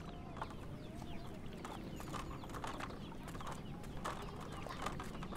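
Village yard ambience: small birds chirping in many short falling notes, with chickens clucking now and then.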